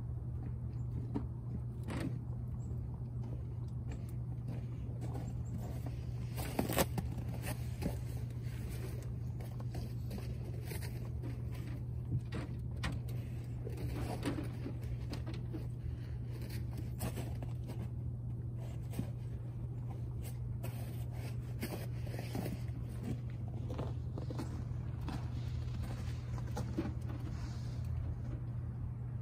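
Rabbits feeding from a bowl and moving about on a wooden hutch floor: scattered small clicks and scuffles, with a louder scuffle about seven seconds in, over a steady low hum.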